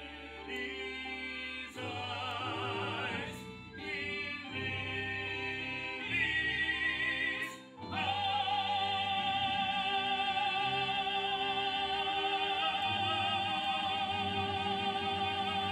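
Musical-theatre singing with heavy vibrato over a low sustained accompaniment, ending on one long high note held from about halfway through.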